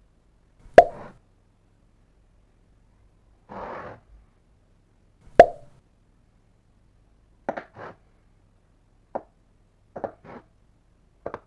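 Two sharp knocks with a short ring, about four and a half seconds apart, with a brief rustle between them, then a run of lighter taps and clicks near the end.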